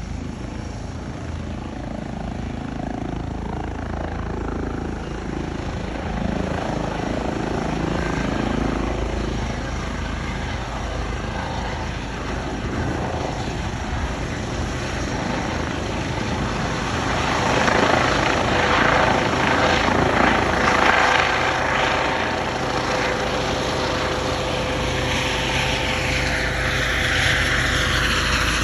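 Helicopter taking off: engine and rotor noise, growing louder from a little past halfway, with a falling pitch near the end as it moves away.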